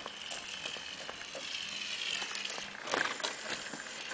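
Small electric motor of a radio-controlled toy car whining, its pitch drifting slowly down, with scattered small clicks. About three seconds in comes a short burst of noise, a scuff or splash on the wet asphalt.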